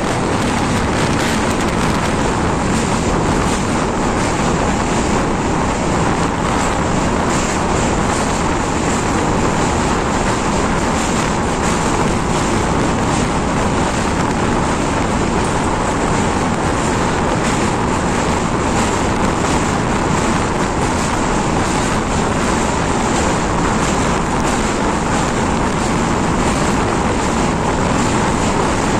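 Train running across a steel truss rail bridge: a loud, steady rumble of wheels on the track mixed with rushing wind.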